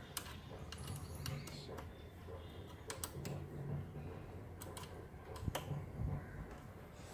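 Scattered light, irregular metallic clicks of a hand tool working the silencer's upper mounting bolt as it is tightened.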